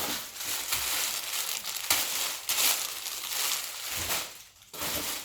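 Packaging crinkling and rustling in irregular surges as clothes are handled and pulled out of a delivered parcel, with a brief lull near the end.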